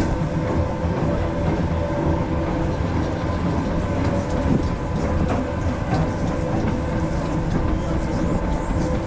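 Roller coaster train running along its steel track, the wheels rattling steadily over the rails with a steady hum underneath.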